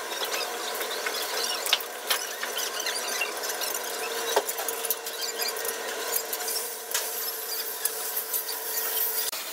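Construction-site work noise: scattered sharp knocks and clatter over a steady high squeal, with a steady hum coming in about four seconds in.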